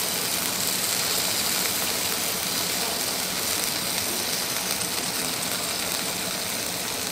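Steady sizzling of a hot iron griddle under an omelette yakisoba, with a low steady hum beneath it.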